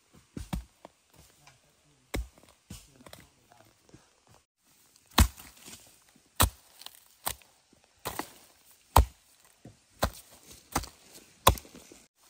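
A hand tool chopping into the ground and roots to dig out a bamboo shoot: sharp strikes, a few at first, then about one a second through the second half.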